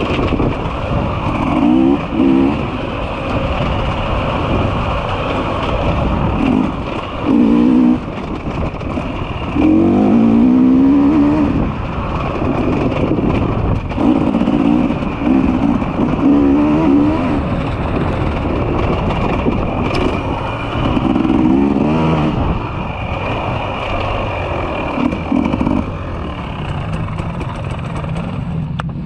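Enduro motorcycle engines revving hard, the pitch climbing and dropping again and again with throttle bursts and gear changes, loudest about ten seconds in.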